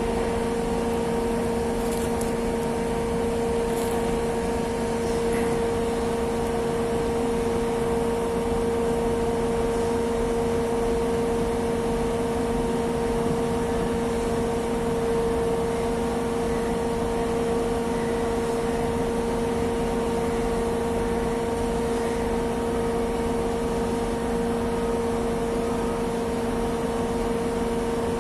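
Steady drone of heavy machinery running at a constant speed, a strong unchanging hum with no breaks.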